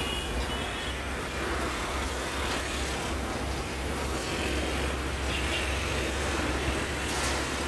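Steady low rumble of road traffic and vehicles.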